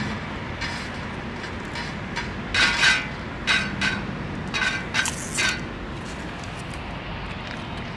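A cat eating from a shallow metal dish, giving a string of short clinks and taps with a slight metallic ring, the loudest about two and a half to three seconds in, over a steady background hiss.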